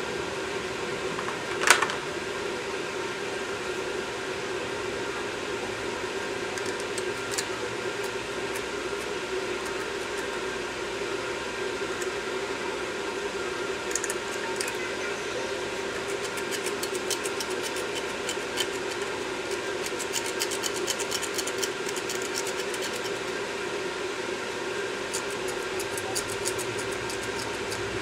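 Steady hum of a fan, with one sharp knock about two seconds in. In the second half come faint, rapid scratching and clicking as a small pick scrapes built-up carbon out of an EGR valve's ports.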